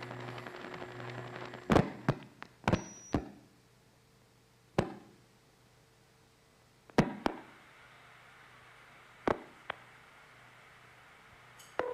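Playback of a 1970s long-distance telephone call being set up. Steady line hum and hiss for the first couple of seconds, then about eleven sharp clicks at irregular gaps of a fraction of a second to two seconds as the call is switched through the network.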